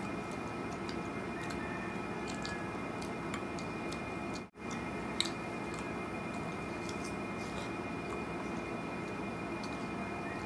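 Faint chewing and scattered small clicks of people eating slices of watermelon and melon off forks, over a steady background hiss. The sound drops out for a split second about halfway through.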